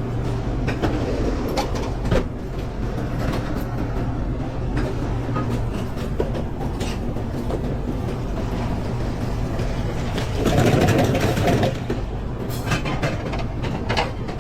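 Busy commercial kitchen line: a steady hum of extraction and kitchen equipment with frequent clatter and clicks of pans and utensils, growing louder for about a second just past ten seconds in.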